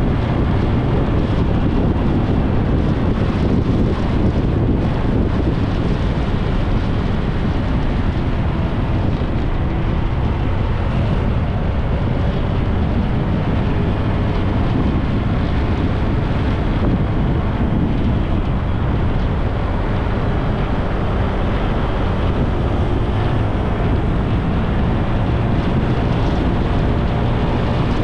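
Motorbike engine running steadily at cruising speed, with wind rushing over the microphone.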